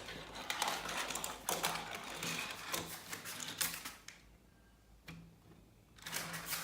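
Rapid clicking and clattering of plastic toy pieces being handled, which stops for about two seconds and starts again near the end.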